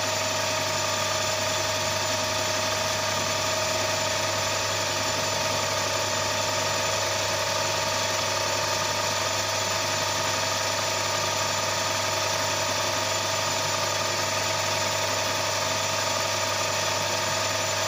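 Maximat metal lathe running steadily under power, its motor and headstock giving a constant hum with several steady whining tones over a hiss, while a light facing skim is taken on a small metal part.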